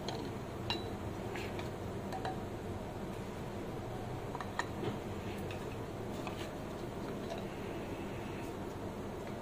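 Fried papdi set down one by one on a glass plate, giving a few faint, sharp taps and clinks, the clearest about halfway through, over a steady low background hum.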